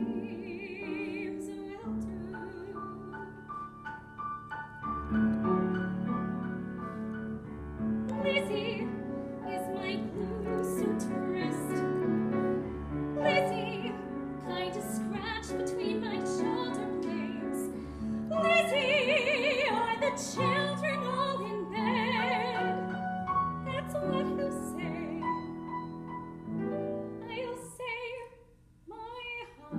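Female classical voice singing a slow musical-theatre ballad with wide vibrato, accompanied by grand piano. The voice pauses briefly near the end while the piano carries on.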